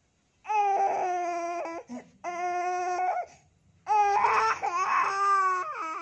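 Baby crying in three long wails with short breaths between them, while being massaged for a cough and cold.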